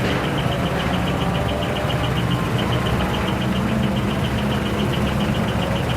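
Heavy truck engine running steadily at low revs, with a high-pitched pulsing tone repeating about five times a second throughout.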